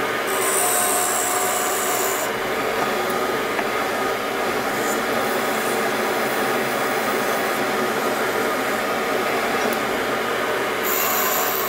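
Axminster AW305WL woodturning lathe running steadily, with a friction wire and then abrasive rubbing against the spinning wooden workpiece; a bright hiss from the rubbing in the first two seconds and again near the end.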